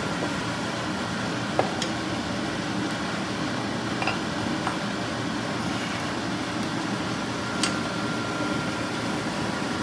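Steady hum of a ventilation fan, with a few light metal clicks as a camshaft and its timing gear are set into a VW Type 1 engine case half.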